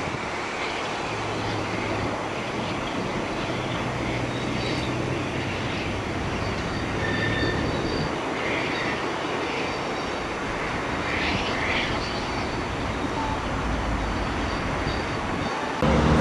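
Air-smoothed Bulleid Battle of Britain class steam locomotive 34067 'Tangmere' drawing its train of coaches away: a steady wash of train noise with no distinct exhaust beat. Near the end it cuts abruptly to a louder low rumble.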